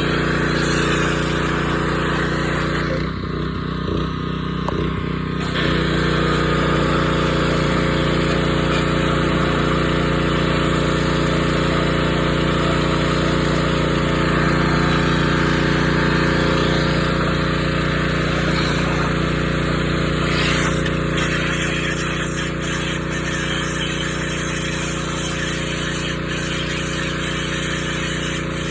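Pressure washer running steadily, its motor's hum under the hiss of the high-pressure water spray; the spray hiss drops away for a couple of seconds about three seconds in.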